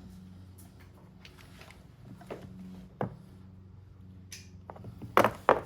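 Metal tools clinking and knocking in a toolbox drawer while someone searches for a socket: a few scattered clicks, then two sharp knocks close together near the end, over a steady low hum.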